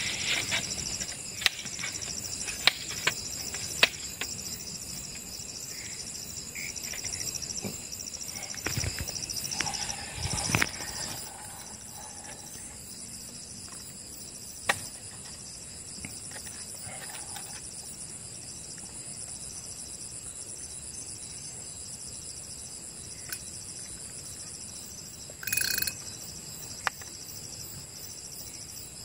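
Night insects, crickets among them, trilling steadily in a high pitch. Scattered knocks and handling clicks in the first ten seconds or so, and a short burst of noise about twenty-five seconds in.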